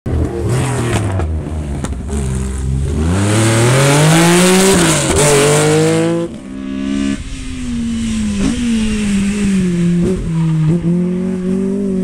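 Rally car engines driven hard past spectators, one car after another: the engine note climbs steeply under full acceleration, then drops and climbs again through gear changes, and the sound switches abruptly from one car to the next.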